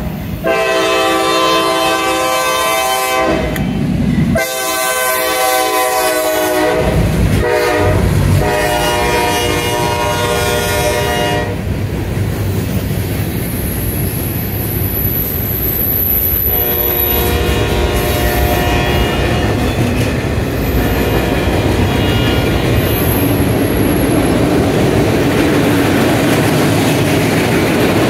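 A CSX freight train's locomotive air horn sounding a series of long blasts in the first dozen seconds and another just past the middle, over the steady rumble and clickety-clack of freight cars rolling past.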